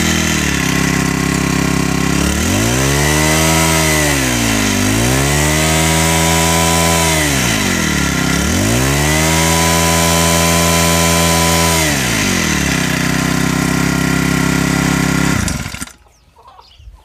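The small four-stroke engine of a Mahindra 999 power sprayer running: it idles, is revved up and held high three times with two brief dips between, settles back to idle, then is shut off about a second and a half before the end.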